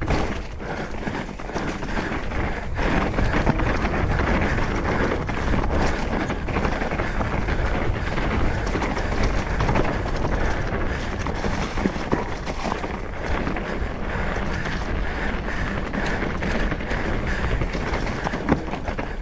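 Mountain bike riding fast over a rocky trail: continuous tyre and trail noise with many quick knocks and rattles from the bike over the rocks, and wind on the microphone.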